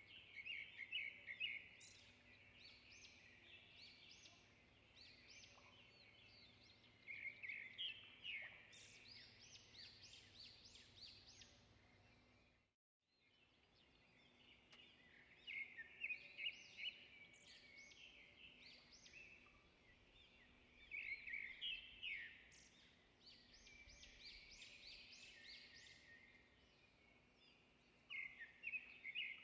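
Faint birdsong: small birds chirping in quick high trills, in clusters every few seconds, with a brief dropout about halfway through.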